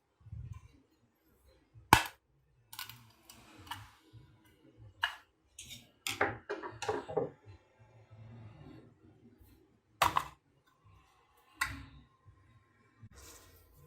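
Irregular clicks and knocks of hard objects being handled, with sharp knocks about two seconds in and again about ten seconds in and a cluster of quicker clicks around six to seven seconds in.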